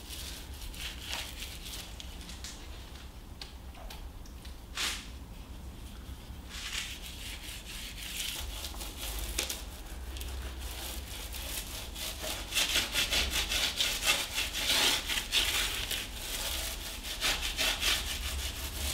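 Small paint roller being rolled back and forth over a plastered door reveal, a scratchy rubbing in quick repeated strokes that gets louder about two-thirds of the way in.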